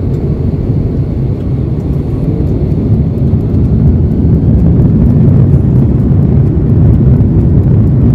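Airbus A330-300's General Electric CF6-80E1 engines at take-off thrust, heard inside the cabin as a loud low rumble with runway noise, growing steadily louder as the take-off roll begins.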